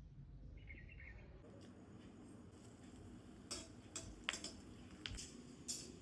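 Faint bird chirping, a short trill about half a second in, over a low background rumble, then a few sharp clicks and knocks in the second half.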